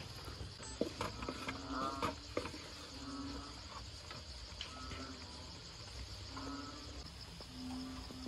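A spatula knocking and scraping against a wok during stirring, several sharp knocks in the first few seconds. Behind it a steady high chirring of insects and short animal calls that recur every second or two.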